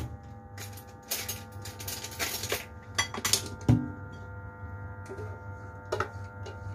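Stainless steel bowl clinking and scraping against the rim of a large steel stockpot as blended melon is tipped and scraped into it, with a dull knock a little before the four-second mark, over a steady low hum.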